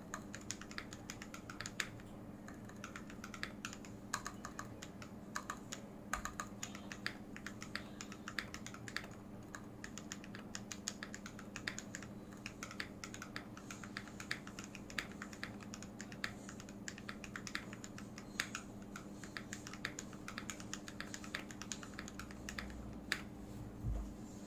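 Typing on a KBD68 mechanical keyboard fitted with Gateron Clean switches on Cherry silent red stems with light 35 g springs and XDA Canvas keycaps: a continuous, irregular run of keystrokes, with a low thump near the end.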